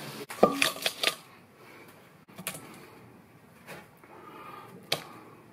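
Oil frying in a wok with a sizzle that cuts off just after the start. A quick cluster of sharp clicks and knocks follows, then a few single clicks: kitchen utensils and crumbed fried pickles clattering against a metal bowl.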